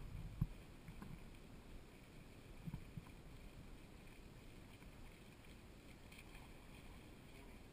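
Low rumble of wind on the microphone, with a few soft low thumps: one about half a second in, another near one second, and a quick pair near three seconds.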